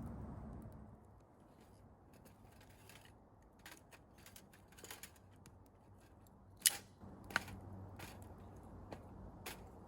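A few scattered sharp clicks and pops over a low background hiss, the two loudest about two-thirds of the way through.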